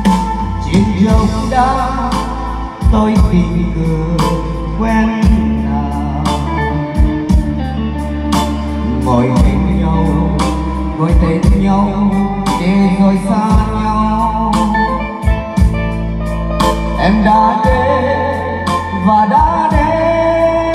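Live-band music played loud through a stage PA system: a steady beat under sustained keyboard chords and a wavering lead melody.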